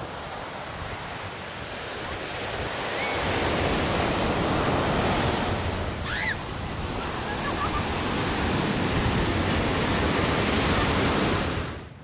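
Ocean surf breaking and washing up a sandy beach, a steady rush that swells about three seconds in and stays loud, then cuts off suddenly near the end. A brief high squeak rises over it around the middle.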